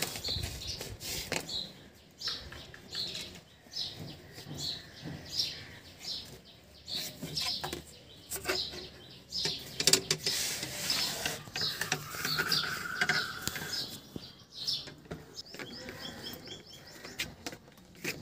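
A small bird chirping over and over in the background, short high chirps about two a second, pausing and starting again later. Under it, scattered clicks and rustles of aluminium wire being bent and pressed against cardboard; the sharpest clicks are the loudest sounds.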